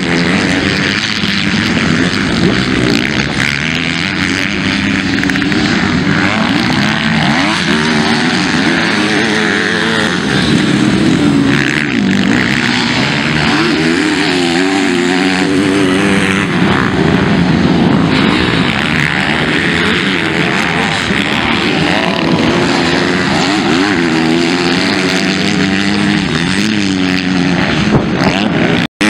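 Several motocross dirt bikes racing, their engines revving up and down and overlapping as they go through turns and jumps. The sound cuts out for an instant near the end.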